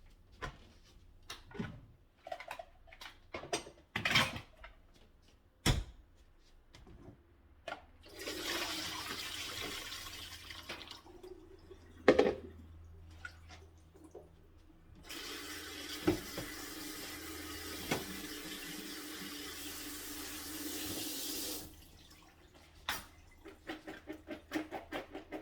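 Kitchen tap running water into a sink twice, about three seconds and then about six seconds, preceded by sharp knocks and taps of a knife on a cutting board as potatoes are cut.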